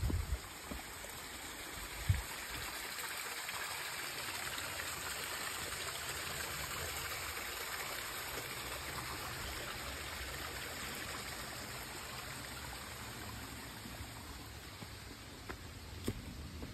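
Small mountain stream trickling and splashing over rocks, building up about two seconds in and slowly fading near the end as it is passed. A sharp thump about two seconds in.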